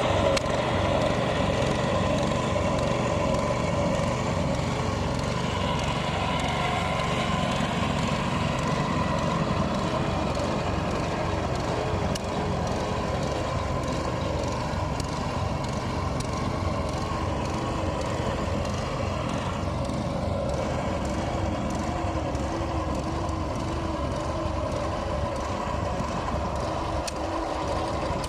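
A heavy engine running steadily, its pitch wavering slightly.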